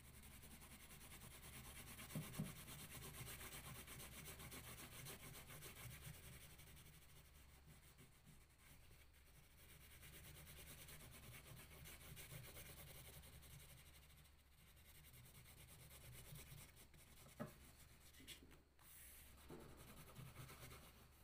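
Faint scratching of a blue crayon rubbed back and forth across paper in quick shading strokes, with a light tap about two seconds in and another near the end.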